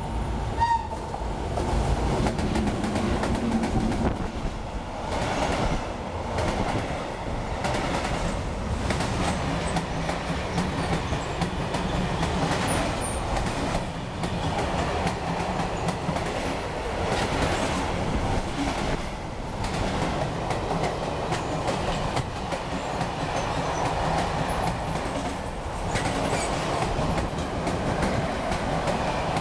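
A freight train passes close by at speed on an electrified main line. The locomotive's heavy low rumble comes first, then a long run of covered wagons with a steady, rhythmic clatter of wheels over the rail joints.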